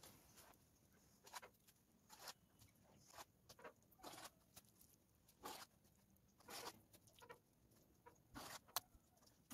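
Faint, irregular wet slaps and squelches of a bare hand scooping mud and packing it onto a smouldering charcoal mound to seal its air holes, about a dozen short sounds.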